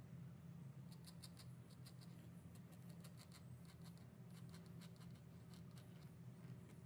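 Pencil scratching faintly on a black Kydex sheet in short strokes while marking eyelet positions. A low steady hum runs underneath.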